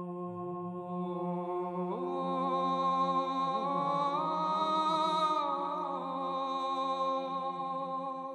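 Slow background music of long, held, humming chant-like tones over a steady low drone, swelling in the middle and easing off near the end.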